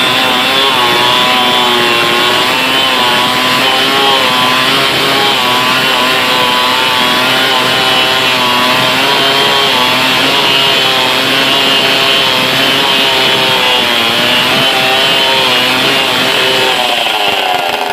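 Stihl 070 two-stroke chainsaw running at high revs under load, cutting through a large log, its engine pitch wavering slightly with the cut. Near the end the engine eases off a little.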